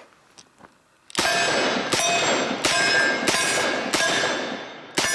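Six shots from a Smith & Wesson 629 5-inch .44 Magnum revolver, about two-thirds of a second apart and starting about a second in. Each shot is followed by steel plate targets ringing.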